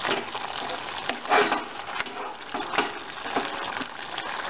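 Chicken pieces frying in oil and butter in a pan while being stirred: a steady sizzle broken by several brief scraping strokes of the stirring.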